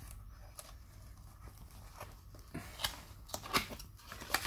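Cardboard box being pried and torn open by hand at its sealed top flaps: scattered clicks and tearing crackles, sparse at first and busier in the last second and a half.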